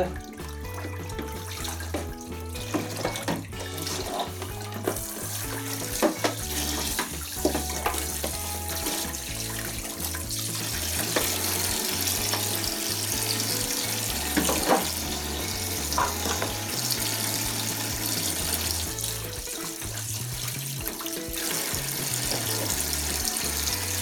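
Cold water running from a kitchen tap onto a plastic detergent drawer and into a stainless steel sink as the drawer is rinsed out, with a few knocks as it is handled.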